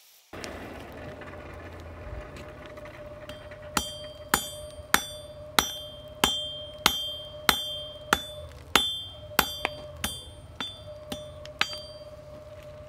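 A hand hammer strikes hot steel on an anvil about fifteen times, a little under two blows a second, and each blow rings. The steel is square stock folded over on itself and fluxed, being hammered to set a forge weld. A steady low rumble and hum runs underneath.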